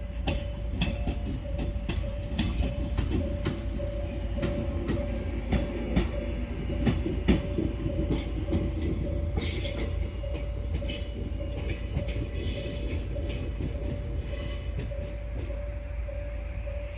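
Japanese level crossing warning bell ringing in a steady pulsing rhythm while an HD300 hybrid shunting locomotive and its train roll through. The wheels clack over the rail joints in the first half. Shrill wheel squeal comes in bursts from about 8 to 15 seconds in.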